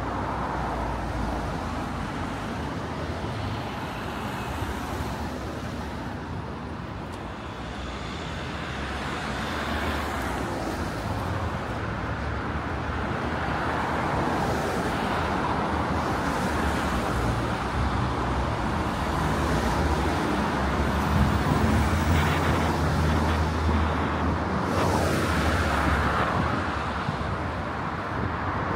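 Road traffic on a city street: cars driving past with a steady rumble of engines and tyres that grows louder through the middle of the stretch and stays up toward the end.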